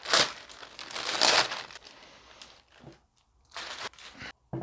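Plastic wrapping crinkling and rustling as it is pulled off a winch, in irregular bursts that are loudest in the first second and a half, with a softer burst later on.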